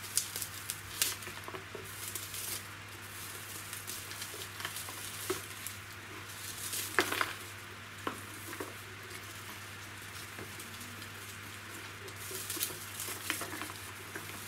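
Old fine orchid bark and sphagnum moss crackling and pattering as fingers pull apart an orchid's root ball, loose bark bits dropping into a plastic tub. There is a louder rustle about seven seconds in.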